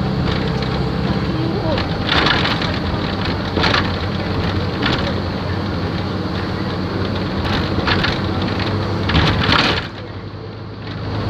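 Wright StreetLite single-deck bus running, with a steady engine hum and several short knocks or rattles over the noise. The sound drops sharply for about a second near the end, then picks up again.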